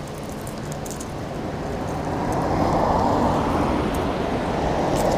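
A road vehicle approaching: its engine and tyre noise grows louder over the first three seconds, then holds steady.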